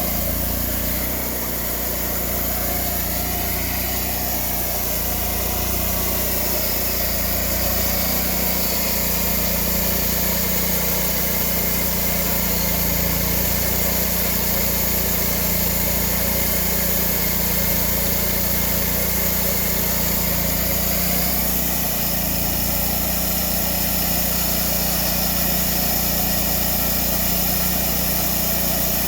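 Small petrol engine of a homemade sawmill running steadily, its pitch shifting briefly twice as the load changes.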